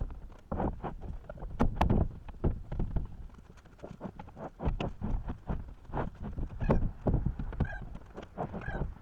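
Footsteps clomping on a floor of rough-sawn 2x6 and 2x8 wooden planks over joists, with irregular hollow knocks and a few short squeaks in the second half.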